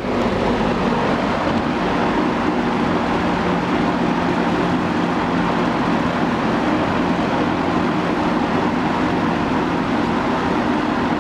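Eskimo box fan running on medium speed: a steady rush of air with a low, even hum underneath.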